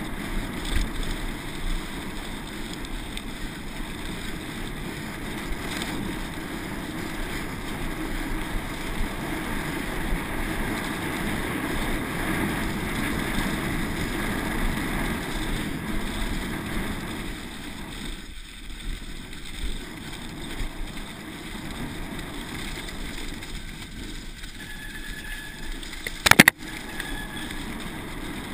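Wind and rumble on an on-board camera as a downhill mountain bike runs fast over a grassy, bumpy slope. One sharp loud clack near the end, as the bike hits a bump.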